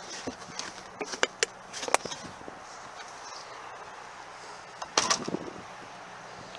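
Small clicks and knocks of trunk-floor trim being handled in a 2016 Toyota Camry's trunk, then about five seconds in a louder cluster of knocks as the trunk lid is shut and latches.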